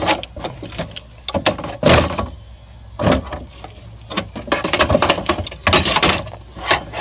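Irregular metallic clanks, knocks and rattles as a new window regulator's metal rails and brackets are worked into a pickup truck's rear door cavity.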